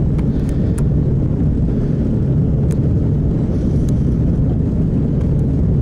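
Motorboat engine running steadily as a low, even rumble, with wind buffeting the microphone and a few faint clicks.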